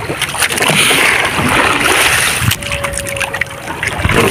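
Sea water splashing and rushing against the hull and bamboo outriggers of a small outrigger fishing boat, a continuous noisy wash that swells and fades.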